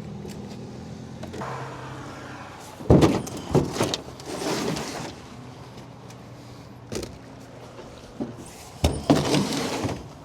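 Clunks and knocks of a vehicle being handled at a fuel pump, with the loudest around three seconds in and again near the end, each followed by a short rush of noise. A low steady hum stops about a second and a half in.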